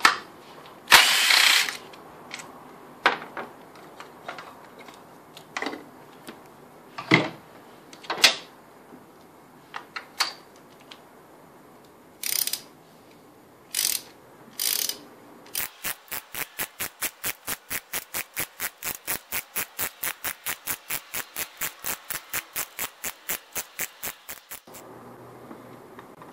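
A hand ratchet clicking rapidly and evenly, about five clicks a second for some nine seconds, as a spark plug is unscrewed from the engine. Before that there are a short loud burst about a second in and scattered clicks and knocks of tools on the engine.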